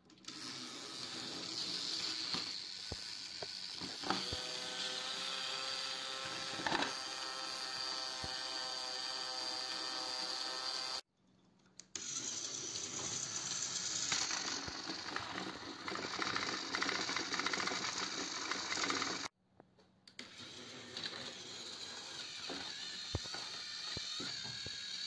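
Small gear motors of battery-powered Thomas & Friends toy trains whirring steadily as the engines push on plastic track. The sound breaks off briefly twice.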